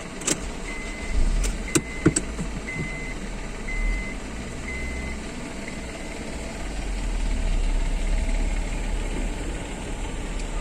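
Low, steady rumble of a car's engine heard from inside the car as it moves slowly onto a ferry. There are a few sharp knocks in the first couple of seconds, and a row of short, high beeps about once a second that stop about halfway through.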